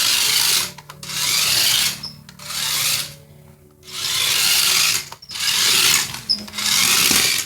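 Small remote-control car's electric motor and spinning wheels whirring at high speed in about six short bursts of throttle, cutting off between each.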